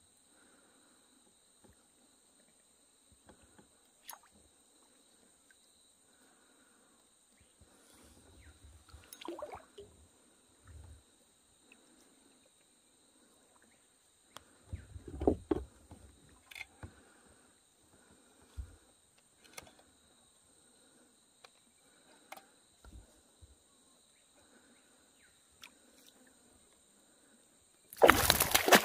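A hooked fish leaping and thrashing at the surface right beside a kayak, a loud burst of splashing that starts near the end. Before it there is a quiet stretch with a steady high insect drone and scattered light knocks on the kayak.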